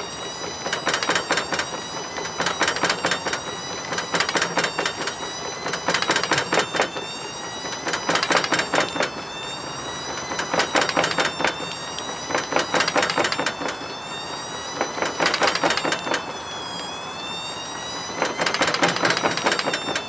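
Bosch washing machine's motor whining steadily as it turns the drum, its pitch wavering a little, while a brick inside clatters and bangs against the drum in bursts about every two seconds.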